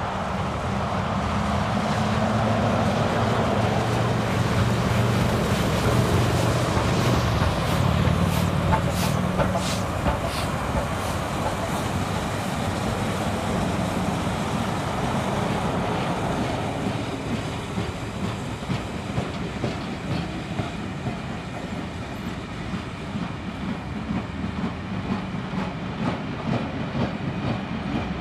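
Beyer Garratt steam locomotive 6029 passing close with a passenger train, with a heavy rumble and a run of sharp clicks as it goes by. Its carriages then roll past, slightly quieter, with the wheels clicking rhythmically over the rail joints.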